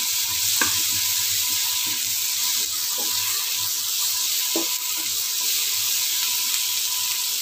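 Sliced onions and green chillies sizzling steadily in mustard oil in a nonstick kadhai while a wooden spatula stirs and scrapes them around, with a few light knocks of the spatula on the pan. A faint steady high tone runs under the sizzle.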